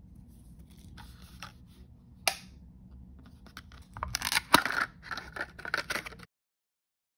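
Soft rustling and a single sharp click from handling a small plastic L.O.L. Surprise blind-package capsule, then about two seconds of crinkling and tearing as its paper seal is peeled off. The sound cuts off suddenly to dead silence near the end.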